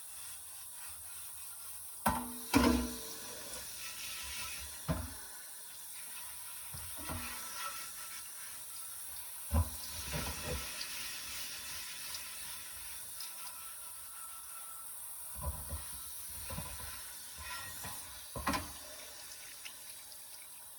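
Tap water running over a cast iron Dutch oven in a sink as it is washed, with scattered knocks and clunks as the heavy pot is handled and scrubbed.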